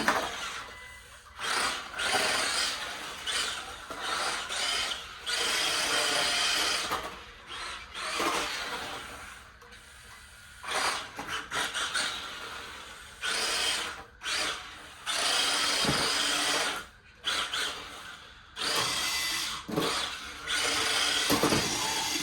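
Small electric motor of a toy RC drift car whirring in repeated bursts of a second or two as the throttle is worked on and off.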